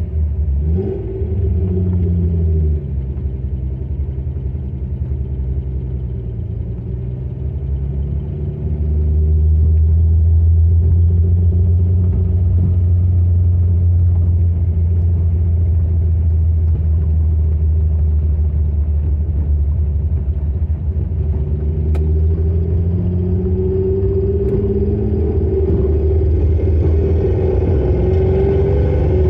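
Lamborghini Espada's V12 engine heard from inside the cabin while driving: a deep, steady rumble whose pitch falls in the first few seconds. It gets louder about nine seconds in and climbs in pitch again near the end as the car accelerates.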